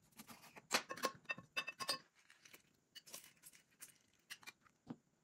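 A lime being cut with a knife on a wooden chopping board and squeezed in a metal hand-held lime press over a glass bowl: a run of light clicks and taps, densest in the first two seconds, then a few scattered clinks.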